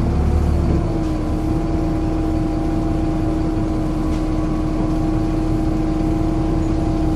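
Volvo B7LA Wright StreetCar diesel bus running, with a loud steady hum held at one pitch over the engine's low rumble; the rumble swells briefly in the first second.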